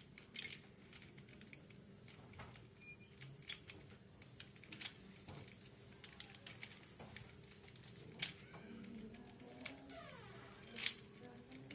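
Faint, irregular plastic clicks and clacks of a 3x3 Rubik's cube being handled and turned, with a few louder clacks scattered through.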